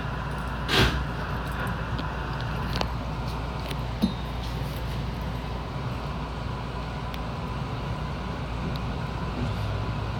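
Steady low rumble inside an electric commuter train, with a short loud burst of noise about a second in and a couple of sharp clicks a few seconds later.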